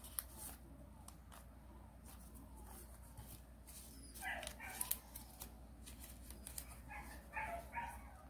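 Paper being folded and creased by hand, giving soft crinkles and sharp little clicks. Short whining calls from an animal come in twice, about four seconds in and again near the end.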